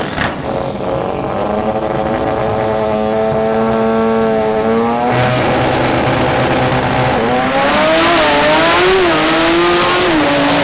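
Rear-wheel-drive import drag cars on the starting line, engines held at high, steady revs, then launching about seven seconds in, the engine note climbing, wavering and dipping as a car pulls away down the strip.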